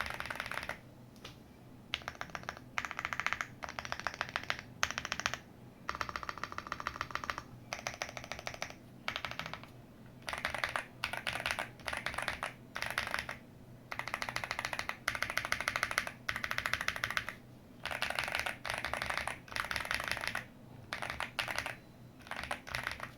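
Mechanical keyboard with Tecsee Ice Milk Mango tactile switches, an FR4 plate, tape and foam mods, and doubleshot ABS keycaps, pressed in short bursts of rapid clacks with brief pauses between. The stabilised keys, including the spacebar, are pressed first, and then one key is pressed repeatedly on its own.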